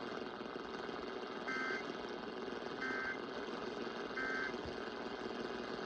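Emergency Alert System end-of-message code: three short bursts of buzzy data tones, each about a third of a second long and about a second apart, over steady AM radio hiss.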